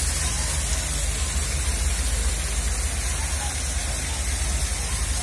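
Water cascading down an artificial rock-wall fountain and splashing into its basin, making a steady rushing hiss, with a low rumble underneath.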